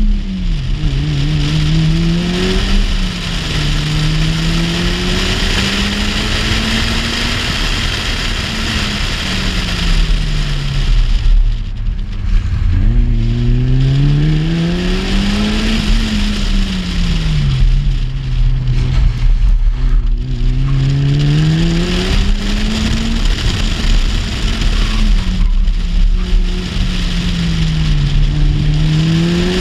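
Car engine driven hard through a slalom, its revs rising and falling every few seconds, with two brief lifts off the throttle near the middle, over steady wind and road noise on a camera mounted outside the car.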